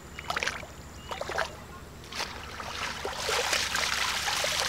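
Water sloshing as a plastic colander is swished through shallow muddy water in a few short splashes, then water pouring and trickling out through its holes as it is lifted, from about three seconds in.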